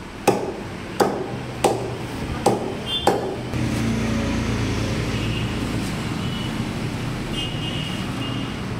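A cleaver chopping on a chopping block, five hard chops spaced well under a second apart, stopping about three seconds in. A steady low rumble then takes over.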